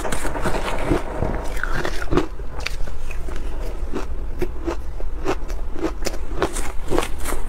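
Mouthfuls of shaved ice coated in matcha powder being bitten and chewed, a steady run of crisp crunches at about two a second, picked up close to the mouth.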